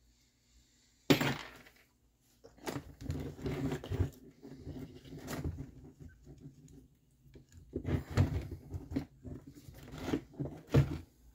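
Small screws and plastic and metal RC truck suspension parts being handled and unscrewed by hand: one sharp click about a second in, then irregular clatter and scraping that comes and goes, loudest near the end.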